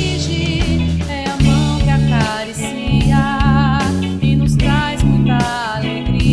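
A song with a sung vocal line over bass, guitar and drums, with a steady beat.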